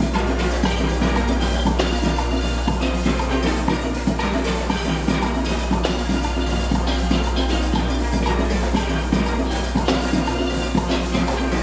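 A full steel orchestra of many steel pans playing a band arrangement together, with drums and percussion keeping a steady beat underneath.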